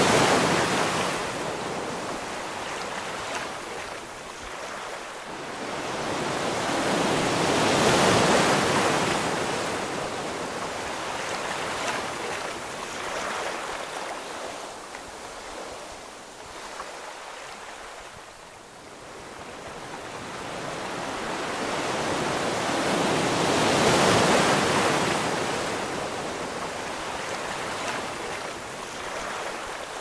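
Ocean waves surging and washing in slow swells. The surf grows loudest at the very start, again about eight seconds in and again near twenty-four seconds, with a quieter lull in between.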